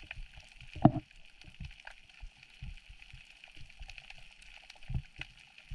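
Underwater ambience: water moving around the diver, with scattered soft low knocks, a couple of louder ones about a second in and near the end, and faint crackling throughout.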